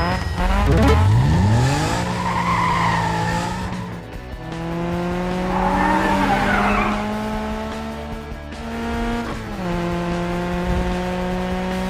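Cartoon vehicle sound effects: engines running with a steady hum that revs up just after the start and drops in pitch about three-quarters of the way through, with tyre squeals around two and six seconds in.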